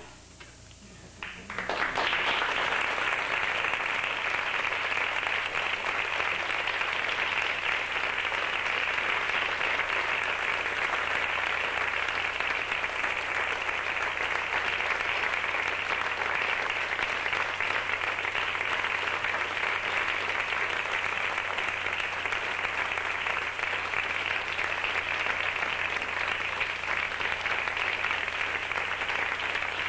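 Audience applause, starting about two seconds in after a brief hush and continuing steadily.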